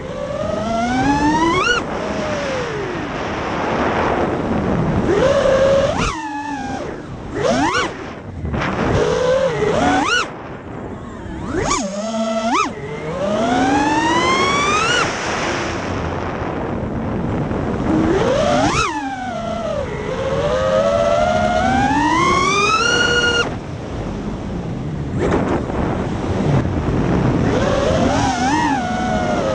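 A 5-inch FPV quadcopter's XING X2207 brushless motors and propellers whining in flight over a hiss of wind and prop wash. The pitch sweeps sharply up and down as the throttle is punched and chopped, and it falls away briefly several times where the throttle is cut.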